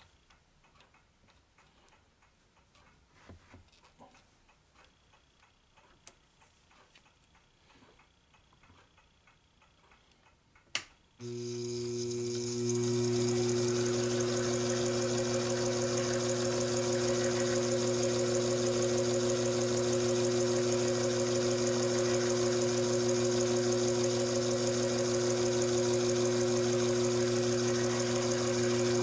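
Taig micro lathe: a few light clicks of metal tooling being handled, then a sharp click about eleven seconds in as the lathe motor is switched on. The spindle then runs steadily with a hum, turning the steel workpiece for center drilling.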